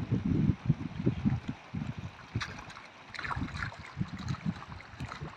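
Strong wind buffeting the microphone in irregular low rumbling gusts, with a few faint clicks and rustles in the middle.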